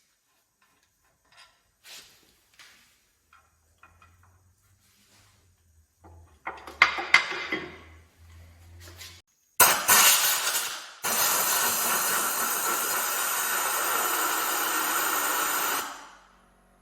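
A few light clicks and a faint low hum in a workshop. Then compressed air blasts in a short loud burst, followed by a steady loud hiss for about five seconds that cuts off abruptly.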